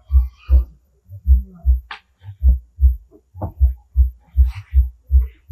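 A low dull thumping repeating about three times a second, with a few faint scratches of a marker on a whiteboard.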